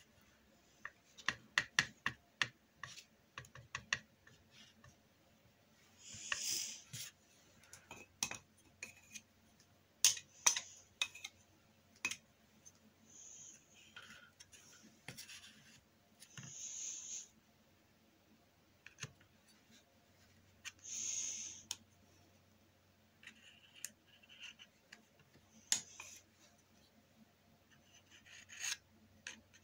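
Acrylic painting work: short scratchy strokes of a painting tool across the painting surface, about half a dozen spread through the stretch, amid many small taps and clicks.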